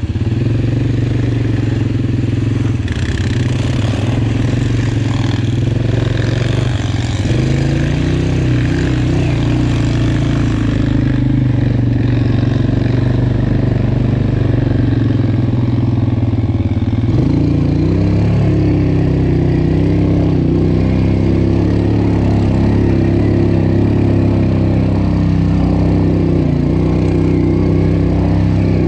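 Suzuki KingQuad 700 ATV's single-cylinder engine running steadily while riding, heard close from the rider's seat. About halfway through, the engine note drops and climbs again.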